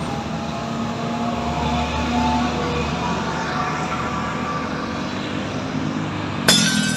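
Busy city road traffic: cars and motorcycles passing with a steady mix of engine and tyre noise, engine pitches drifting as vehicles go by. A sudden sharp noise breaks in near the end.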